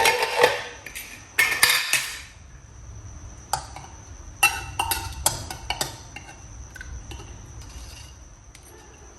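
Kitchen utensils and dishes clattering and clinking: a dense burst of clatter in the first two seconds, then a run of separate sharp metal clinks and knocks, over a faint steady high-pitched hum.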